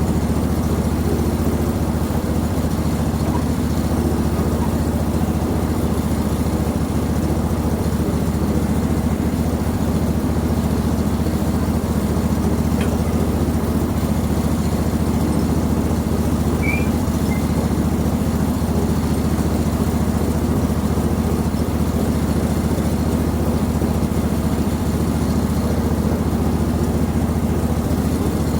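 Small gas engine of a portable band sawmill running steadily at an even speed.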